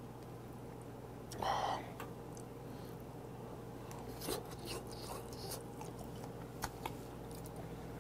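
Close-miked eating: soft chewing with small wet clicks and lip smacks from a man eating stewed potato and pork bone stew with chopsticks. A short, louder breathy vocal sound comes about a second and a half in.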